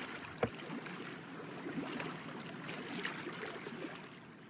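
Small waves lapping and trickling against the water's edge, with a single sharp click about half a second in. The sound fades toward the end.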